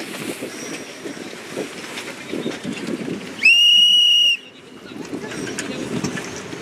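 A single loud, steady, high-pitched whistle blast lasting just under a second, about three and a half seconds in, over a low rush of wind and water.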